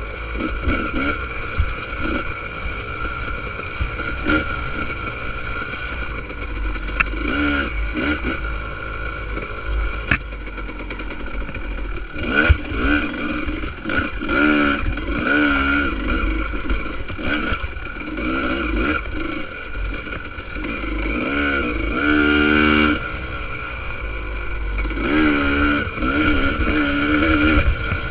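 2000 Honda CR250R's single-cylinder two-stroke engine being ridden hard, revving up and falling back again and again, with a steady low wind rumble and a couple of sharp knocks from the bike over rough ground.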